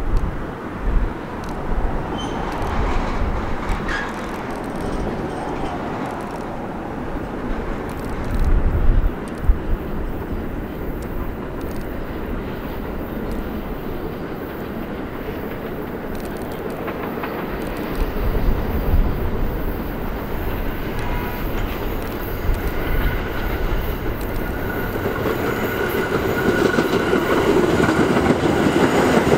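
Budd R32 subway trains running on elevated steel track: a steady rumble of wheels on rail with light clacking. Near the end a train comes in closer and louder, with a thin wheel squeal.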